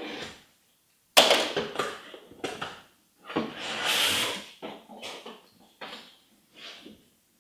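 Cardboard shipping box being torn open by hand: a sharp rip about a second in, then scraping and tearing of the flaps and packing tape, with a longer tearing sound near the middle and the rustle of packing paper being pulled out near the end.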